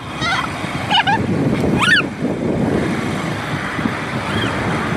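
Wind rushing over the microphone of a moving motorcycle, with its engine running underneath. Three short, curving calls of a blue-and-yellow macaw sound in the first two seconds, and a faint one later.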